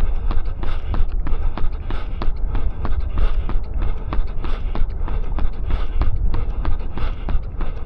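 A runner's footfalls at a tempo-run pace, an even rhythm of about three steps a second, over a steady low rumble.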